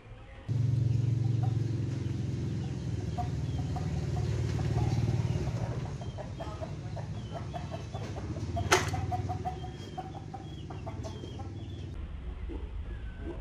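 Chickens clucking in short repeated calls over a low hum that sets in suddenly and fades after about six seconds, with a single sharp click about nine seconds in.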